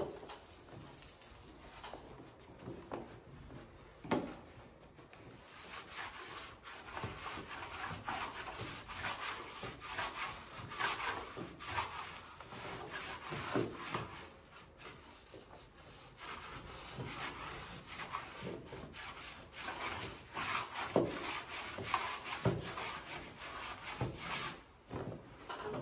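Wallpaper being worked by hand against a wall: a long run of uneven rubbing and sweeping strokes over the pasted paper, with a few soft knocks, as a strip with too much paste under it is pulled back and smoothed down again.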